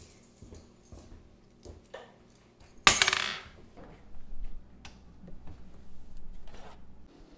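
Refrigerator door pulled open with one sudden loud rush about three seconds in, then softer clinks and knocks of glass beer bottles as one is taken from a six-pack on the shelf, over a low hum.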